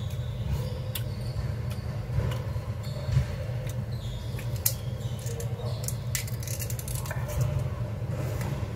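Eating and handling sounds during a meal of fried chicken: scattered small clicks and crackles from biting and chewing and from cups and utensils, over a steady low hum.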